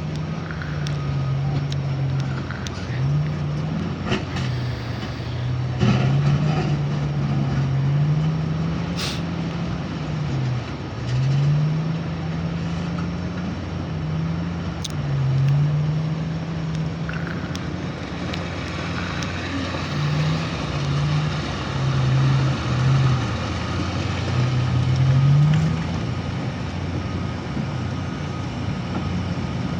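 Diesel engine of heavy earthmoving machinery working, its speed rising and falling every second or two as it takes load. A few sharp knocks sound over it.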